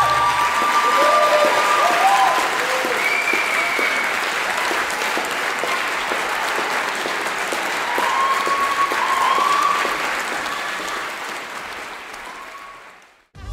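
Audience applauding after a ballroom dance, with a few cheers. The last of the music ends in the first second, and the applause dies away near the end.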